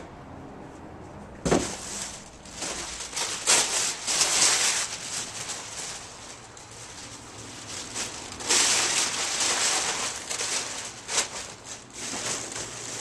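Stiff brown packing paper being crumpled and rustled by hand into padding, in two long stretches of crackling, with a single cardboard thump about a second and a half in.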